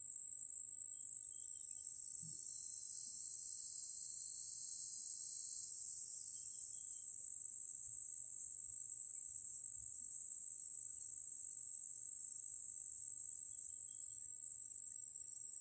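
Steady, high-pitched insect chorus trilling without a break, with a second, lower trill joining in for a few seconds about a second in.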